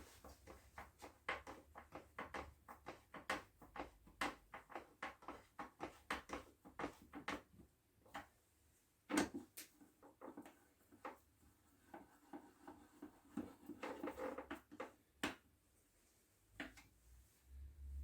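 Light irregular clicks and knocks of small parts and tools being handled, several a second at first, then a few scattered louder knocks.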